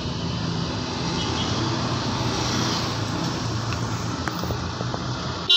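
Street traffic: the engines and tyres of a car and a motorcycle driving past, swelling as they go by. A loud car horn honk starts right at the end.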